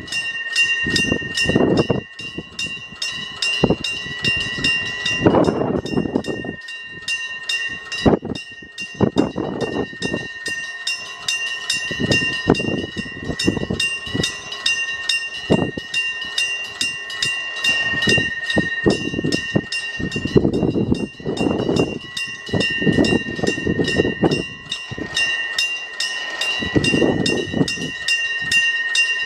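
A Japanese level-crossing warning bell ringing in a rapid, even stream of strikes over steady tones, while a Hokuriku Railroad Ishikawa Line train passes with swelling bursts of wheel rumble and clatter every few seconds.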